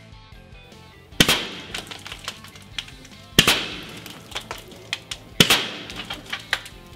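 Three shots from an AirForce TexanSS .457 big-bore air rifle with its sound-suppressing shrouded barrel, about two seconds apart, each a sharp crack that rings off the walls of an enclosed indoor range.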